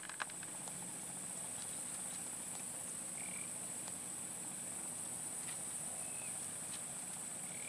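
Swamp ambience: frogs calling with a few short chirps, over a steady high-pitched drone.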